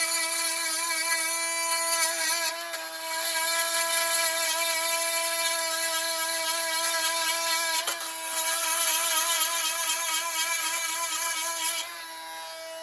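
Bosch GOP 18V-28 cordless brushless oscillating multi-tool running with a steady, high-pitched buzz. It dips briefly twice and drops in level near the end.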